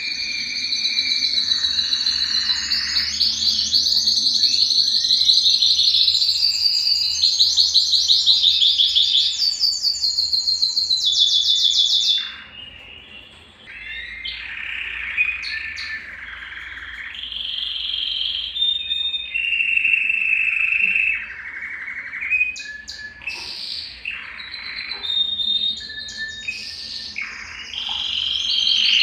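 Domestic canary singing: fast rattling trills for about twelve seconds, a short pause, then slower whistled notes and varied short phrases, breaking back into fast trills near the end.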